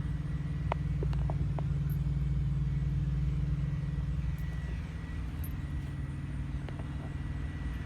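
Steady low rumble of an idling engine, with a few light clicks in the first second and a half.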